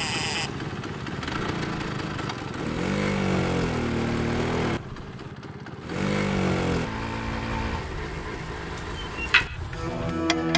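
Small motorbike engine running, rising in pitch twice as it speeds up and then holding steady. Music begins near the end.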